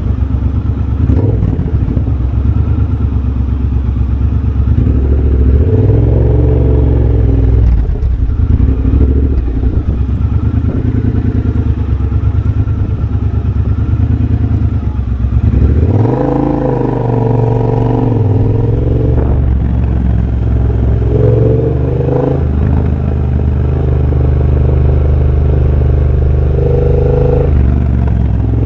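2023 Triumph Bobber's 1200 cc parallel-twin engine running through a de-catted X-pipe and a Motone shorty exhaust while riding. The note climbs and drops several times as the throttle is opened and closed.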